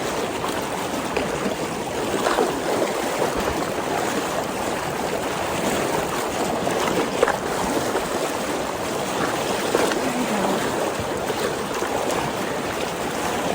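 Fast, high snowmelt creek water rushing steadily close by, with a few brief splashes or knocks mixed in, as someone wades deep through the current.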